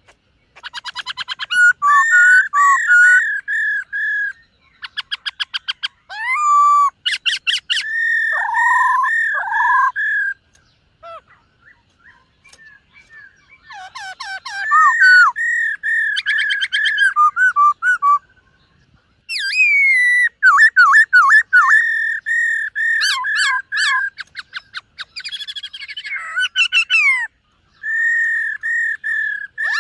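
Black-throated laughingthrush singing loud bouts of clear whistled notes mixed with rapid rattling trills, with short pauses about eleven and eighteen seconds in.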